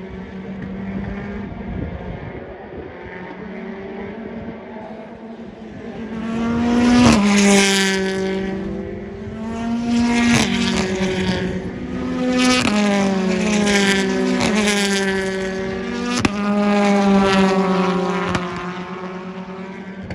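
Racing cars passing at speed one after another, their engine notes growing louder and then dropping in pitch as each goes by, about six passes in quick succession from about six seconds in. Before that a quieter, steady engine note from cars further away.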